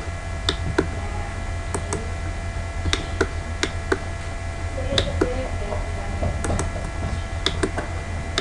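Scattered clicks of a computer mouse and keyboard, several every couple of seconds and often in close pairs, over a steady low hum.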